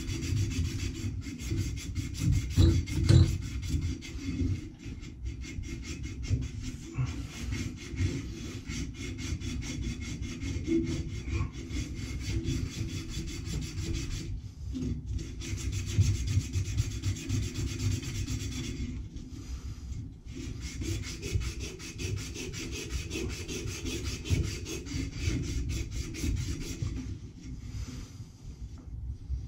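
A 1/2-inch copper water pipe being scoured clean by hand with steady back-and-forth rubbing strokes and a few short breaks, cleaning the copper bright before it is cut and soldered.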